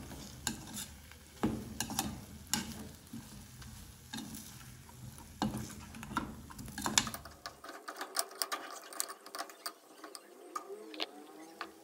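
Metal slotted spoon scraping and clinking against a stainless steel pot while stirring beef fry in hot oil, with the oil sizzling. The clinks come irregularly and get quicker and denser in the second half.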